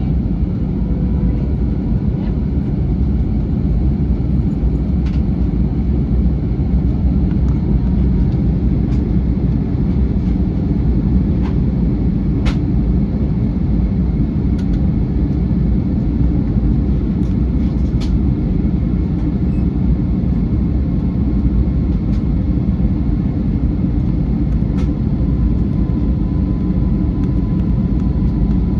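Cabin noise inside an Airbus A321 airliner: a steady low rumble of engines and airflow, with a few faint ticks from the cabin trim here and there.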